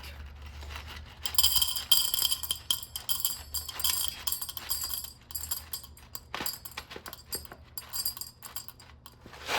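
Whole coffee beans rattling and clinking as they are poured into a dosing cup on a scale, measuring out 18 grams for a double shot, in quick runs of small hard ticks.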